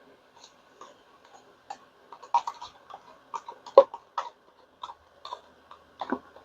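Irregular light clicks and taps of a stirring stick scraping against a mixing cup as the last of the resin is worked out, with a louder knock near the middle and another near the end.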